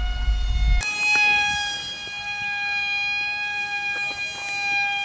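Steady high-pitched whine of a small electric foam plane's propeller motor, one tone with overtones. About a second in its pitch steps slightly higher and a low wind rumble on the microphone stops abruptly.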